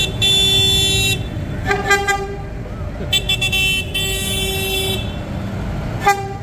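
Tractor horns honking in repeated blasts: a long one at the start, a short toot about two seconds in, a longer broken run in the middle and a short toot near the end, over the low rumble of tractor engines driving past.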